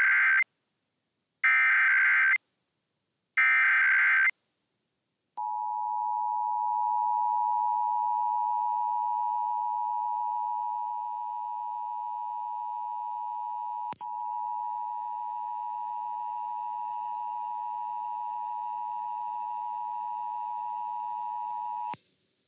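Emergency Alert System broadcast signal: three bursts of digital data tones, each about a second long, then the steady two-tone EAS attention signal held for about sixteen seconds, with a brief click partway through, cutting off near the end. It opens a statewide Required Monthly Test.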